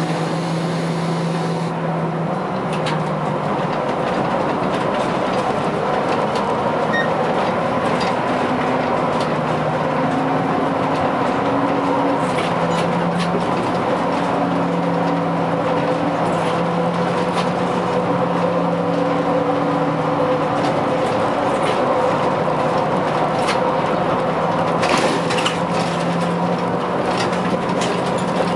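Škoda 15TrM trolleybus under way, heard from inside the driver's cab: steady running and road noise with a low electric hum that steps up and down in pitch, and a few clicks and rattles near the end.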